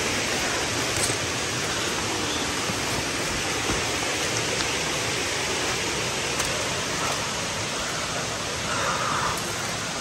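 Steady rushing of white water in river rapids.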